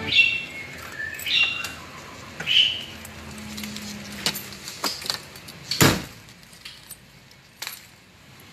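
Ignition keys on a keychain jangling as they are turned and handled at the ignition switch, with the engine silent. Several sharp clicks follow, and a louder knock about six seconds in as the driver's door is opened.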